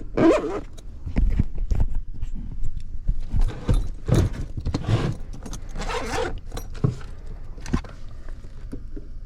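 Hands and tools working on a powered-down HVAC unit: a run of irregular scraping, rustling and rattling strokes with a few sharp clicks.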